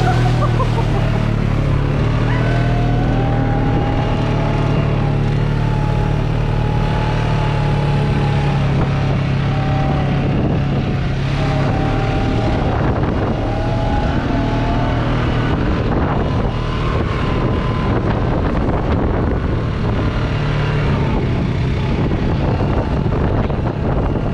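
Off-road vehicle engine running under way, a steady drone with a higher whine that rises and falls in pitch as it drives.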